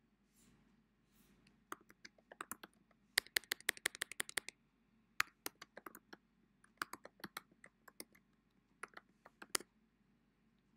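Typing on a computer keyboard: irregular runs of quick key clicks, fastest a few seconds in, with a last short flurry near the end.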